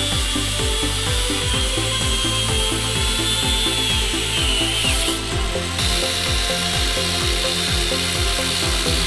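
Background music with a steady beat, with a power tool whining over it for about the first five seconds, its pitch dropping as it stops.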